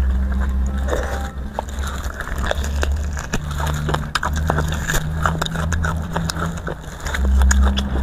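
Close-miked eating sounds of spicy beef bone marrow: many small wet mouth clicks and smacks of chewing and sucking, over a steady low hum.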